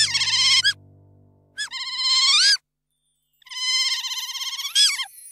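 Otters calling: three long, high-pitched warbling squeals, each wavering up and down in pitch. Background music plays underneath and stops about halfway through.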